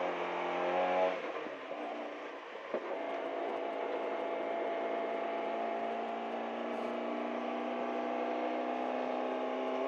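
Fiat 127 Group 2's 903 cc four-cylinder engine heard from inside the cabin. Its revs drop off in the first second or two, and it then runs at low, steady revs, with a single knock about three seconds in.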